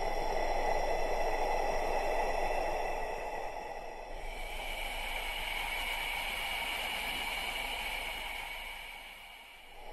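Slow recorded human breathing used to pace meditation. One long, airy breath of about five seconds gives way, about four seconds in, to a second, hissier breath that fades away near the end, and a new breath begins just after.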